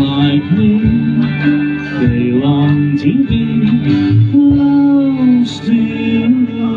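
Live band music heard from the crowd: an electric guitar carries the melody in an instrumental break, with bends and held notes, over steady bass and drums.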